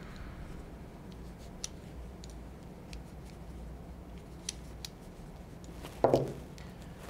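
Light metallic clicks and taps of Eternal Attacker FX-3 shotgun parts being handled during disassembly and cleaning, with one louder knock about six seconds in.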